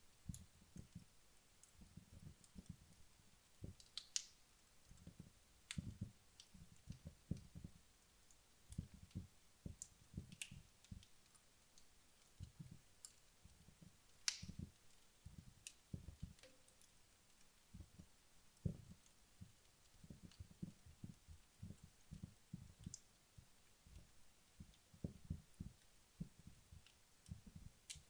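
Wood fire in a fireplace burning down, with faint, irregular crackling and a few sharper pops.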